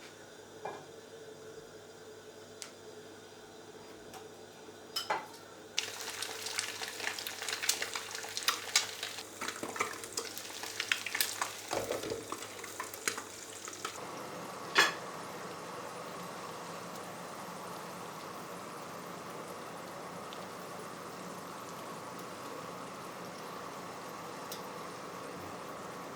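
Kitchen utensil work: a utensil clicks and scrapes busily against a bowl for several seconds, then one sharp click, followed by a steady hiss.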